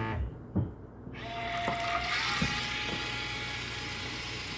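Small portable washing machine's motor starting about a second in and running with a steady high whir, after a single knock near the start.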